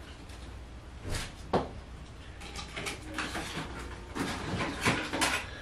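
Hair being slicked down with gel: a handful of short, irregular rustling strokes, with a cluster of them in the second half.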